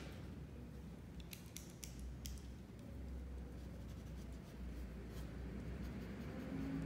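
Pencil lead scratching on paper in a series of short, quick strokes as strands of hair are drawn in.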